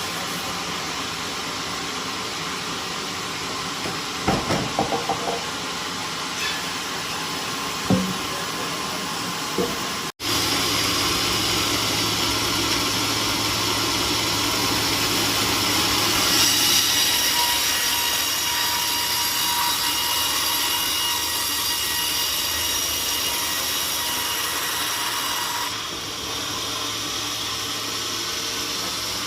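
Sawmill machinery running steadily, with a few sharp knocks in the first part. After an abrupt break it runs louder with a thin, steady high whine, easing slightly near the end.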